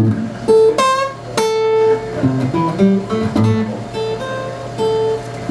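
Acoustic guitar played solo, single plucked notes mixed with a few sharp strummed chords.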